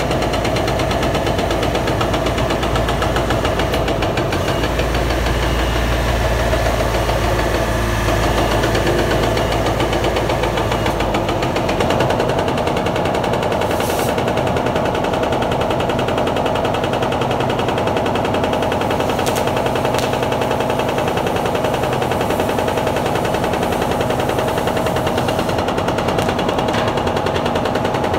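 Hydraulic breaker hammering concrete in a rapid, unbroken stream of blows, over the running engine of the machine that carries it. The low engine rumble drops back about eleven seconds in.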